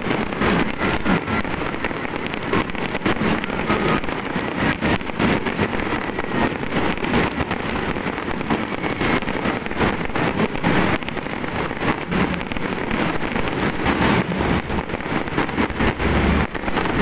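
Fireworks crackling: a dense, unbroken stream of small pops and crackles from many bursting shells and fountains.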